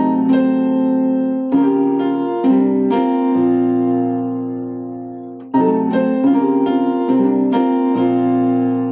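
Electric keyboard with a piano sound playing a passing-chord progression that resolves to the 4 chord. Sustained chords are struck a few at a time; the progression runs through once and starts again about five and a half seconds in.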